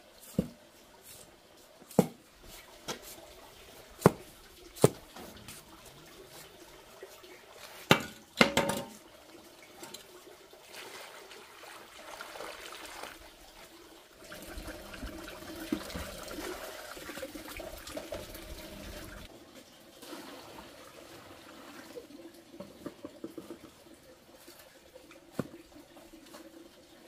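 A shovel blade striking and scraping across concrete while sand is heaped, with several sharp knocks in the first few seconds. Water then pours into a hollow in the sand pile for about five seconds, followed by quieter scraping and wet crunching as the shovel turns the wet sand mix.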